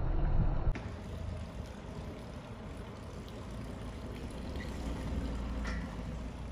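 Outdoor town street ambience: a steady low rumble with a few faint light ticks. It follows a louder low rumble that cuts off abruptly under a second in.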